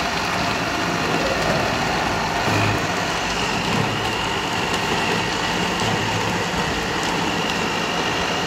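A Geepas countertop blender motor running steadily, its blades spinning a berry mixture into a swirling liquid juice, with a thin steady high whine over the motor noise.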